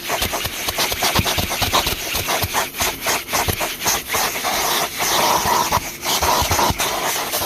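1995 Numatic Henry HVR200P vacuum cleaner running with a steady suction hiss, its nozzle rubbing and knocking against the car's interior in many quick clicks and scrapes.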